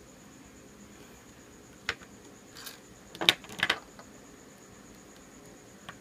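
Hard plastic parts of a Play-Doh cupcake tower stand clicking and knocking together as they are handled and fitted: a few sharp clacks between about two and four seconds in, the loudest about three seconds in.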